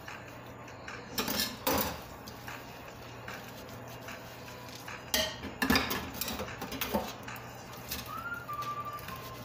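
Kitchen handling sounds: dishes and utensils clattering and knocking on the counter in a few short bursts over a low steady hum. A thin high tone comes and goes near the end.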